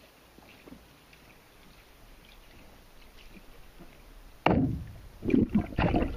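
Faint underwater hiss. About four and a half seconds in, loud muffled bursts begin: a person shouting into the water, garbled and bubbling as heard by an underwater microphone.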